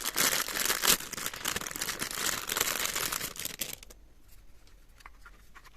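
Plastic packaging crinkling and rustling as it is handled, stopping a little under four seconds in, followed by a few faint clicks.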